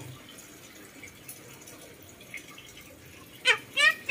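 Red-breasted parakeet giving two short, loud, sharp calls in quick succession near the end, its mimicry of a dog's bark.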